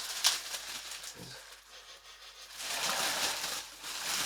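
Plastic packaging rustling and crinkling as bumper plates are unwrapped by hand, with a sharp crackle a moment in and a longer rustle about three seconds in.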